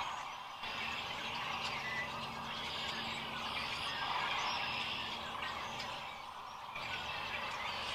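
Dense chorus of a huge flock of sandhill cranes, many birds calling at once in a continuous overlapping din.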